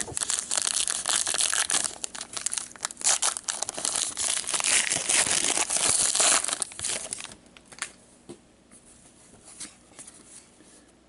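Hockey card pack wrapper being torn open and crinkled by gloved hands, a dense crackling rustle. About seven seconds in it drops off to a few soft clicks and rustles as the cards are pulled out and handled.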